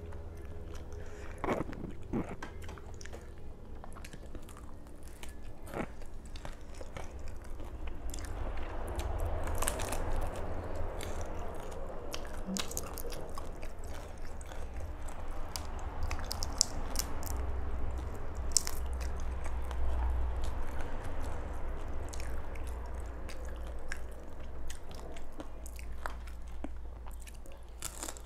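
A person chewing close to the microphone, with crisp crunching bites of fried shrimp amid steady wet chewing.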